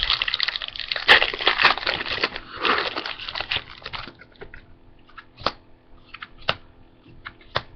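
Trading cards being handled. For about four seconds there is a dense rustling and crinkling, then it thins to separate sharp clicks as single cards are flicked over, roughly one a second.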